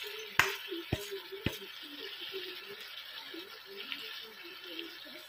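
Dry raw rice pouring from a stainless steel bowl onto chicken and chorizo frying in a pan, with a soft hiss of the grains and faint sizzling. Three sharp clicks in the first second and a half, about half a second apart.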